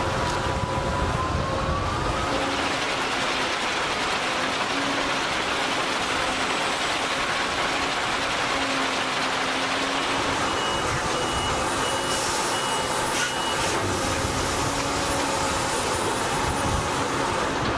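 Sennebogen 870 M diesel material handler working its clamshell grab: steady machine noise with engine tones and a whine that rises in pitch in the first couple of seconds. About ten seconds in, a warning beeper sounds repeatedly for around three seconds.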